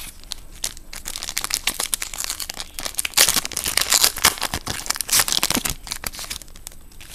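A foil trading-card pack wrapper being torn open and crinkled by hand. The dense crackling is loudest through the middle and dies down toward the end.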